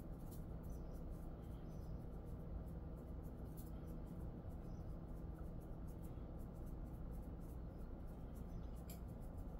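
Fingers rubbing and scratching through a Jindo dog's fur, a soft irregular scratchy rustle, over a steady low hum.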